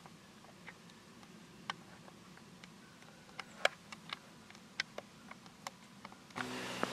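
Scattered, irregular sharp ticks and crackles of dry leaf litter, a few at first and more often towards the middle. A low steady hum comes in suddenly near the end.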